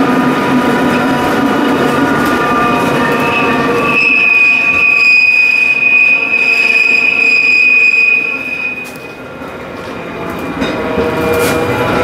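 Tramcar running on curving rail, with a high steady wheel squeal from about four seconds in that stops near nine seconds, the wheels grinding against the rail through the curve.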